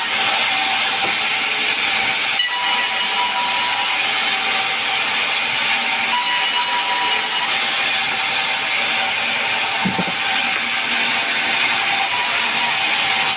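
Sawmill saw cutting through a pine log into boards: a loud, steady, high-pitched hissing whine that holds without a break.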